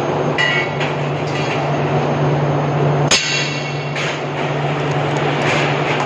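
Perforated sheet-steel cable tray knocking and clinking as it is worked into place by hand. There are several light metallic clicks and one sharp knock about three seconds in, over a steady low hum.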